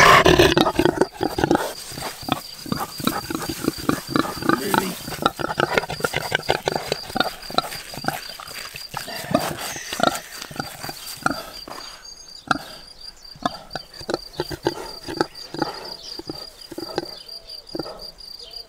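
A pig eating up close to the microphone: rapid, irregular chomping and smacking.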